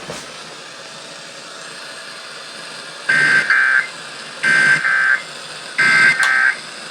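Three short bursts of EAS/SAME digital data tones, a warbling two-tone screech about a second and a half apart, marking the end of the alert message. Before them a steady broadcast hiss.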